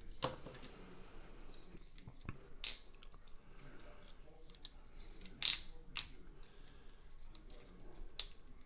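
Small metal clicks and taps of tools and parts on a padlock's lock cylinder as it is worked on to be taken out, with a few sharper clicks at irregular intervals, about three, five and a half, six and eight seconds in.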